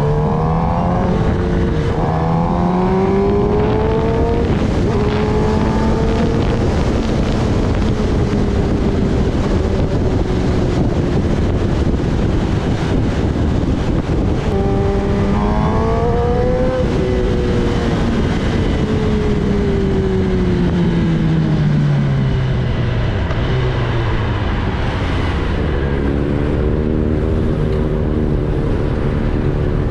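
Kawasaki Ninja ZX-10R's inline-four engine accelerating through the gears, its pitch climbing and breaking at each upshift. It pulls hard again about halfway through, falls away in a long slowing drop, and settles to a steadier, lower note near the end. Wind rushes over the microphone throughout.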